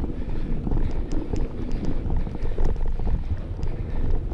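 Wind buffeting a handlebar-mounted camera's microphone as a mountain bike rides a rough dirt track, with tyre noise and scattered clicks and rattles from the bike.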